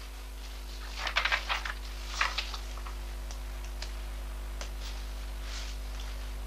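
Paper rustling and handling at a counter: two short flurries of rustling, then a few scattered light clicks and scratches, over a steady electrical hum.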